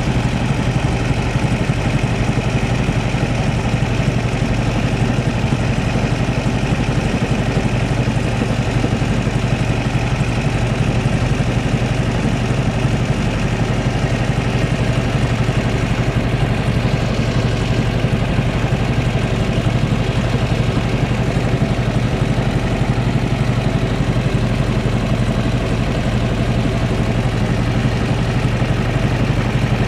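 A small boat's engine running steadily under way, a constant low drone.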